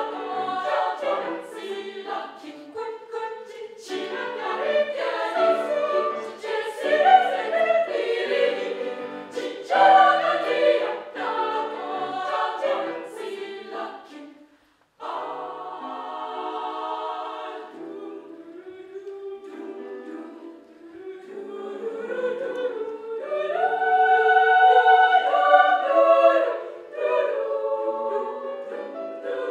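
Children's choir singing in several parts, with moving phrases, a brief break about halfway through, then held notes.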